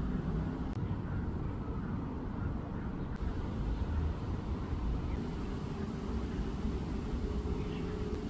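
Steady low outdoor rumble with no distinct events, joined by a faint steady hum about five seconds in.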